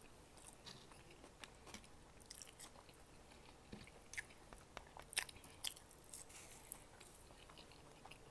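Close-miked chewing and biting of fast food: soft, wet mouth sounds with scattered small crunches and clicks, the sharpest about five seconds in.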